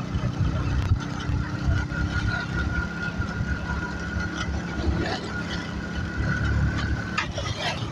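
Motorcycle engine running as it rides along a road: an uneven low rumble, with a thin steady high whine that stops about seven seconds in.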